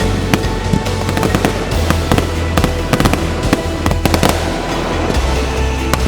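Fireworks going off in quick succession, many sharp bangs and crackles throughout, over background music with a steady bass.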